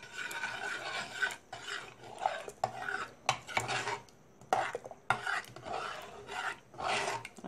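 A spoon stirring cooked dal and vegetables with spices and tamarind juice in an open pressure cooker, in irregular swishing, scraping strokes with a few sharp clinks against the metal pot.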